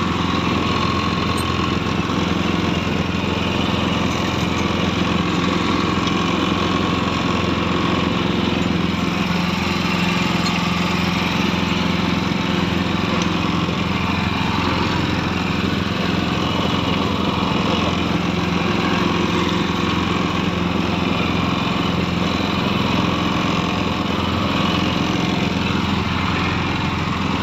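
Small engine running steadily, driving a net-hauling machine as a gill net is pulled aboard.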